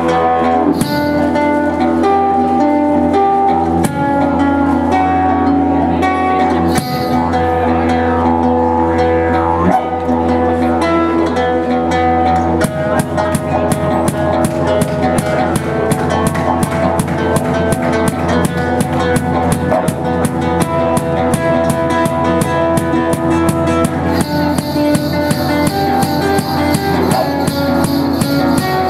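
Didgeridoo drone played together with a strummed guitar by one street musician. About halfway through, a fast, steady percussion beat joins in and runs alongside the drone.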